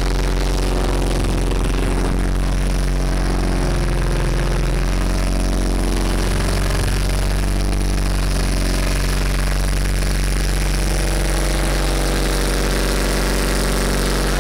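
A small open boat's engine running steadily while the boat is under way: a constant, even low drone.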